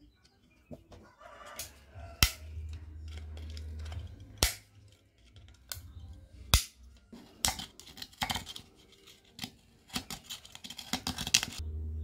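Pliers clicking and scraping on the thin metal screw base of an LED bulb's plastic housing as it is bent and torn away. Single sharp clicks come about two, four and a half and six and a half seconds in, then a quicker run of clicks and scrapes until near the end. A low hum comes and goes.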